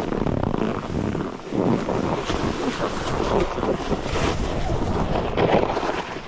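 Wind buffeting the microphone during skiing, with the rough hiss and scrape of skis on snow.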